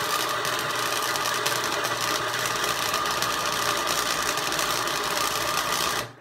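Harbor Freight 90-amp flux-core welder striking a steady arc at its maximum setting: a continuous loud crackle and sizzle with a steady hum underneath, cutting off suddenly about six seconds in as the weld stops.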